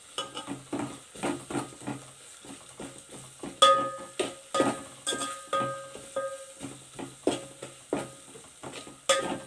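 A metal spoon stirring a thick onion-and-spice masala in a stainless steel pot, scraping and knocking against the pot in quick irregular strokes. The harder knocks make the pot ring briefly, and the masala sizzles in the oil underneath.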